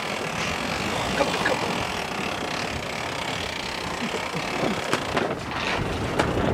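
Steady wind on the microphone and water rushing past the hull of a Volvo Ocean 65 racing yacht under sail, with a sharp tap about five seconds in.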